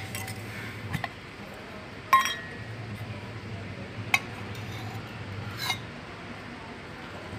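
A steel spoon clinks against a small steel tin and a steel plate as fat is scooped out and spread on a roti. There are four sharp clinks, the second, about two seconds in, the loudest and briefly ringing.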